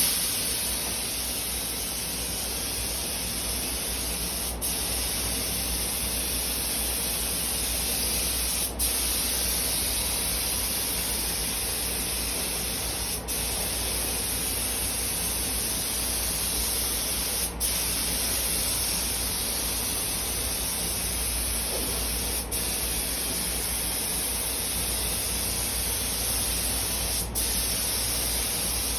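Compressed-air paint spray gun hissing steadily as paint is sprayed. A brief click and dip in the hiss comes roughly every four to five seconds.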